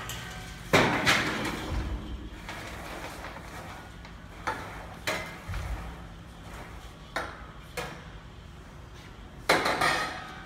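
Long metal stirring rod clanking and scraping against the stainless-steel tray of a commercial popcorn machine as freshly popped popcorn is pushed around. There is a loud clatter about a second in, a run of lighter knocks through the middle, and another loud clatter near the end.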